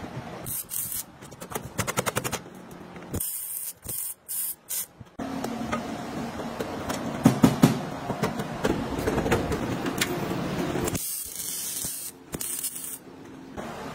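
Car body-repair work sounds in short bursts: several spells of hissing crackle, the last of them near the end from MIG welding a panel, a quick run of rapid even ticking about two seconds in, and a few sharp knocks in the middle.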